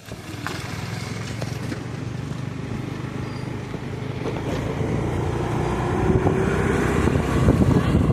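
Riding pillion on a motor two-wheeler: engine and road noise with wind rushing over the microphone, growing steadily louder.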